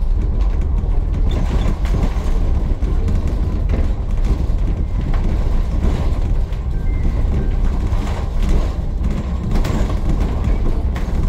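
ADL Enviro400 MMC double-decker bus running: a steady low engine and road rumble, with scattered small knocks and rattles.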